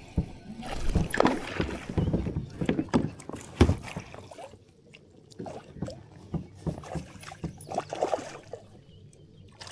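Water splashing and sharp knocks against a kayak as a hooked bass is fought alongside and brought in. The splashing and knocking are thickest over the first four seconds, then give way to scattered small clicks and sloshes.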